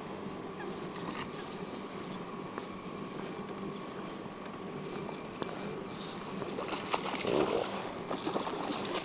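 Daiwa Ballistic FW LT2000SS-XH spinning reel working while a hooked trout is played, a high-pitched mechanical whirring and clicking. It starts about half a second in, eases off around six and a half seconds, and comes back near the end.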